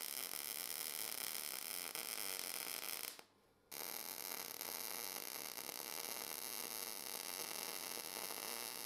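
MIG welding arc of a Cebora Pocket Pulse inverter welder running 0.8 mm wire under an argon mix with 18% CO2: a continuous rasping, crackling buzz as a bead is laid on metal plate. It cuts out abruptly for about half a second just after three seconds in, then resumes.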